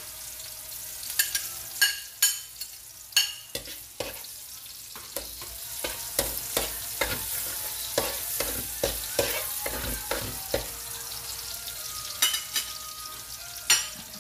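Minced garlic sizzling in hot oil in an aluminium wok as it is sautéed, with a metal spatula scraping and clinking against the pan in repeated sharp clicks while stirring.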